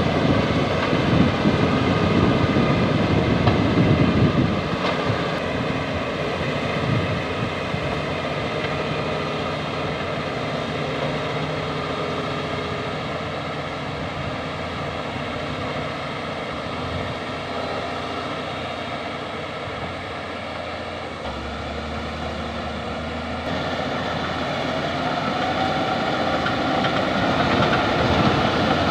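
Crawler bulldozer's diesel engine running under load. A heavier, rough rumble fills the first few seconds, the engine settles into a steadier note, and it grows louder again near the end.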